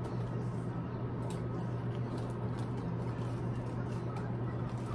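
Steady low room hum with faint scattered clicks and mouth sounds of two people chewing sandwiches.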